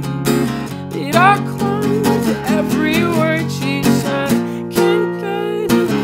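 A Schecter acoustic guitar strummed in steady chords, with a man's voice singing over it.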